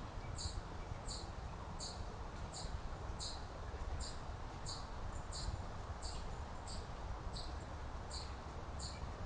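A short high chirp repeated evenly, about three every two seconds, over a steady low rumble of outdoor noise.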